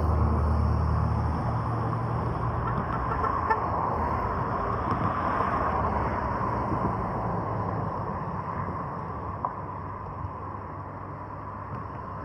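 Road traffic: a motor vehicle passes, its engine hum strongest in the first second or so, and the sound slowly fades away over the following seconds.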